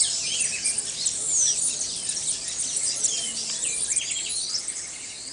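A crowd of small birds chirping and twittering at once, many short high-pitched calls overlapping, thinning a little near the end.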